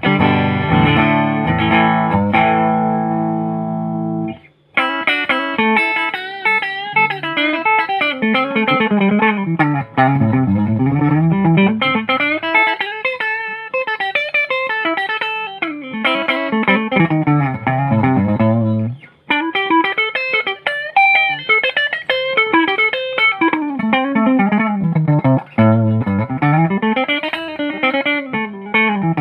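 Electric guitar playing a sound test: a strummed chord left ringing for about four seconds, then fast picked runs of notes sweeping up and down in pitch, with short breaks about four and a half and nineteen seconds in.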